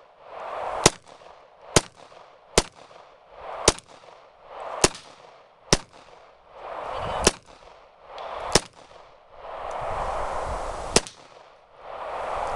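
Glock 26 9mm subcompact pistol fired nine times in slow single shots, each a sharp crack, about a second apart at first and spacing out toward the end, with a hiss rising between shots.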